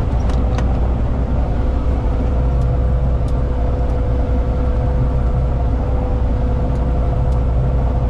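Massey Ferguson 7244 combine harvester running steadily while harvesting winter wheat: a low, even engine drone with a constant whine above it. A few faint ticks come in the first second.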